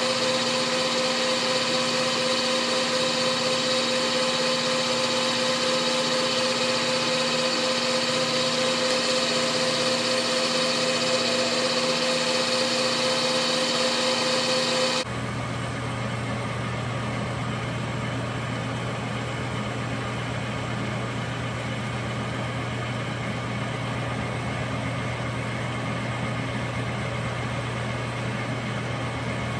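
Metal lathe running steadily with a whine; about fifteen seconds in the sound changes abruptly to a lower, slightly quieter steady hum.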